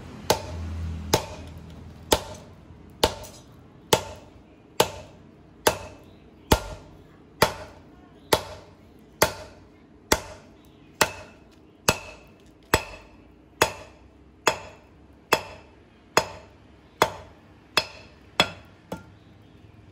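Hammer blows on steel over an anvil, forging a knife blank of aircraft landing-gear steel. The blows are evenly spaced, a little under one a second, and each rings briefly; one near the end is lighter.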